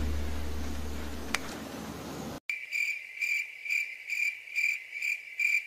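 A low rumble fades and cuts off abruptly about two and a half seconds in. Crickets then chirp in an even rhythm, about two chirps a second.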